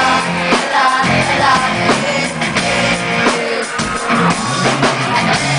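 A live pop song with a female lead vocal singing over a band with a drum kit, played loud through a PA system at a sound check.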